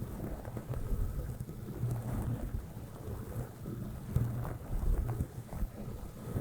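Soft brush stroked directly across the microphone, giving a low, muffled rumbling swish with irregular scratchy strokes.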